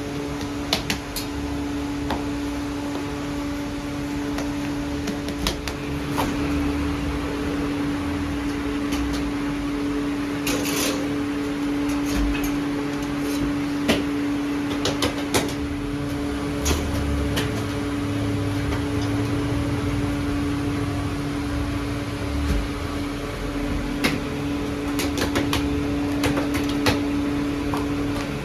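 Steady mechanical hum, as of a small motor, with scattered sharp clicks and taps over it.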